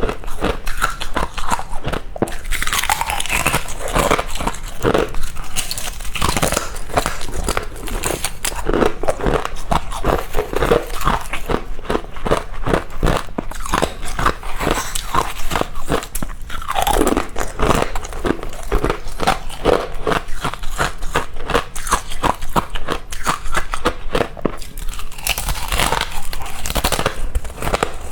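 Close-miked biting and chewing of powdery freezer frost, a dense run of rapid soft crunches that keep going without a break.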